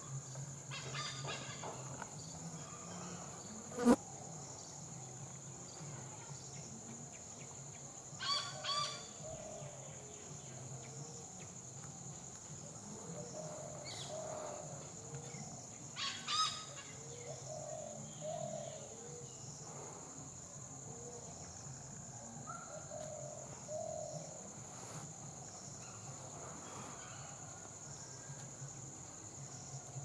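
Steady high-pitched insect drone, with a few short harsh bird calls, two of them doubled, about 8 and 16 seconds in. A single sharp click about 4 seconds in is the loudest sound.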